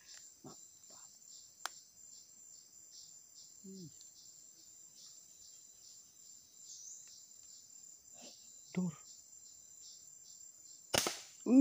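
Insects chirring steadily in a high, pulsing band. A faint click comes about two seconds in, short low murmurs come around four and nine seconds, and a sharp loud knock comes near the end.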